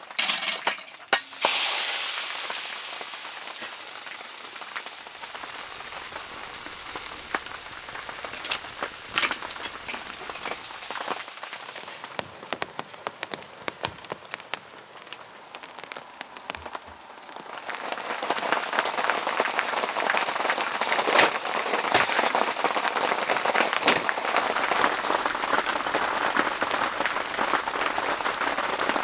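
Rain falling, light with scattered drops at first and turning into a steadier, heavier shower about two thirds of the way in. A few sharp clicks sound right at the start.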